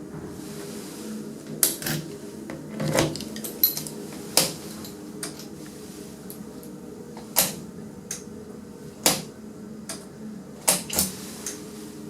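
Passenger lift car travelling down: a steady low hum, with a scattering of sharp clicks and knocks at irregular intervals.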